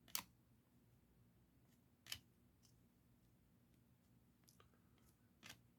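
Near silence with a few short, faint clicks from baseball trading cards being handled and slid apart while flipping through a pack.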